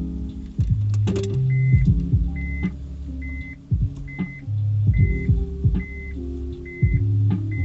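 A car's in-cabin reverse warning beeping: short, high, even beeps about every 0.8 seconds, starting after a few clicks about a second in. Music with a heavy bass line plays throughout.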